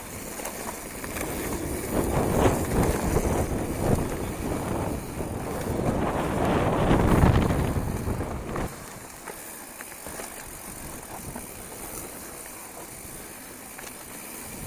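Hardtail mountain bike descending a loose dirt trail, heard from the rider's own bike: tyres on dirt and a busy rattle of knocks over bumps, with wind on the microphone. It is loudest and roughest for the first eight or nine seconds, then settles to a quieter steady rush.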